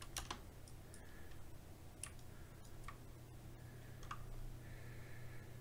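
A handful of sharp computer mouse clicks, a few seconds apart, over a low steady hum.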